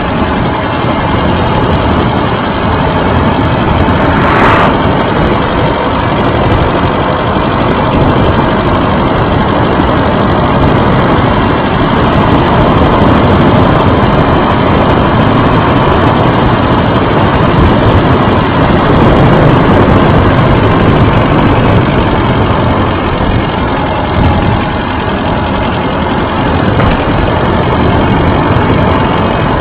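Steady, loud road noise and wind buffeting picked up by a camera mounted low on a bicycle riding over rough, patched asphalt, with one sharp knock about four and a half seconds in as the bike jolts.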